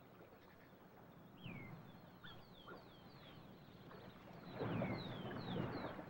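Black-necked swan cygnets peeping: a scattering of thin, high whistles, each falling in pitch. A short rush of noise swells up about four and a half seconds in.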